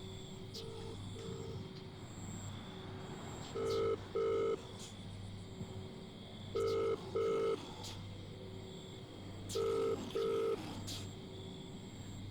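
Telephone ringing tone: pairs of short electronic beeps, repeating about every three seconds, the first pair faint and the rest louder. A steady low hum runs underneath.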